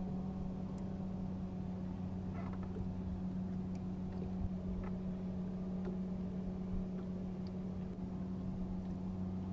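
Electric trolling motor humming steadily, with a few faint clicks over it.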